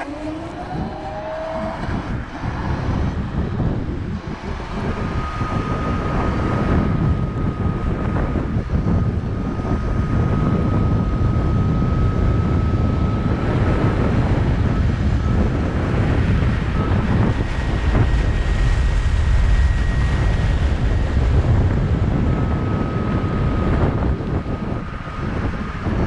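Kaabo Wolf Warrior X Pro+ electric scooter being ridden, with heavy wind on the microphone and road rumble, and a short rising whine at the start. A thin, steady high whistle comes and goes over the rumble and sits higher in pitch for a few seconds midway; this is the annoying whistle the rider wants to get rid of.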